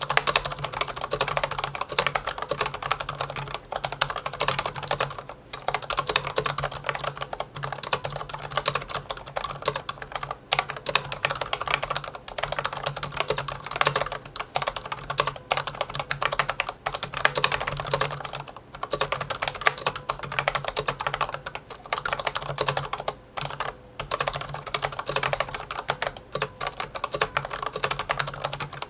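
Corsair K60 PRO RGB SE mechanical keyboard with Cherry Viola switches and double-shot PBT keycaps being typed on fast and continuously, with a few short pauses. The keystrokes carry the hollow case resonance that the reviewer finds strong on this keyboard.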